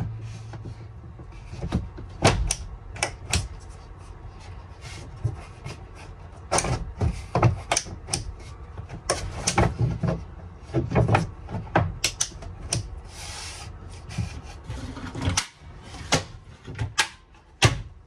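Irregular knocks, taps and clatter of a ceiling trim strip being handled and pressed into place inside a van's interior. The loudest knocks come a couple of seconds in and just before the end.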